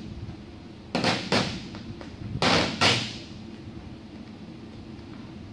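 Short scraping, rustling swipes of vinyl wrap film being worked onto a race car's body panel. They come as two quick pairs, one about a second in and one about two and a half seconds in.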